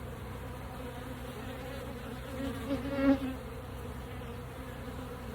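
Many honey bees flying around the hives, a steady buzzing hum. One bee passes close and buzzes louder about three seconds in.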